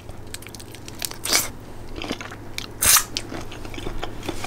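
A person chewing and biting food, with many small wet clicks and two louder crunchy bites, about a second and a half in and just before three seconds.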